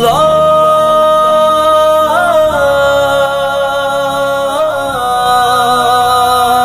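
Unaccompanied sung intro of an Urdu devotional song: long held vocal notes without words, sliding to a new pitch about two seconds in and again near five seconds.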